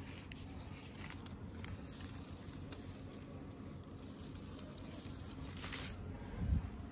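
Faint rustling of guava leaves and light handling noise as a hand moves a fruiting branch, with a few soft clicks, a brief louder rustle near the end and a short low rumble just after it.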